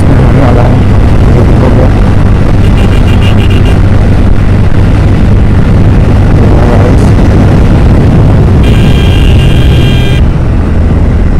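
Motorcycle riding at road speed: a steady engine hum under loud wind rushing over the microphone. A high-pitched steady tone sounds for about a second and a half near the end.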